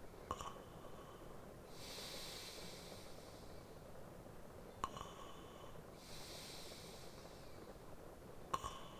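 Slow, deep sleep breathing from a man napping: three short snort-like clicks, each followed a second or so later by a soft, airy breath. The breaths come about every four seconds, over a faint steady hiss of rain ambience.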